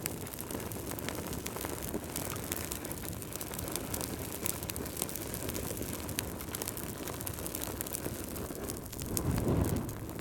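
Wood fire burning in a fireplace: a steady low rumble from the flames with frequent sharp crackles and pops from the logs. The low rumble swells louder near the end.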